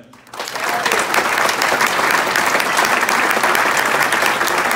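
Audience applauding: many people clapping together in a dense, steady patter that comes in suddenly at the start.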